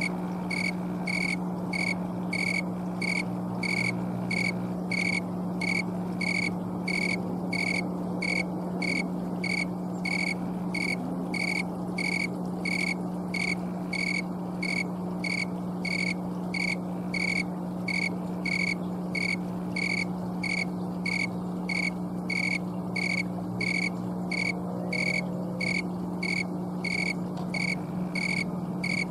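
Snowy tree cricket (Oecanthus fultoni), a male, chirping in a steady, even rhythm of about two high chirps a second, made by rubbing its raised wings together. A steady low hum runs beneath it.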